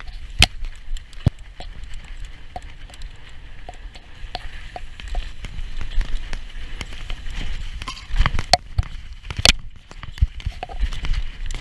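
Mountain bike riding fast down a rough dirt trail: tyres rolling on dirt under a steady rumble, with frequent sharp clicks and rattles from the bike over the bumps. A cluster of heavier knocks comes about two-thirds of the way in.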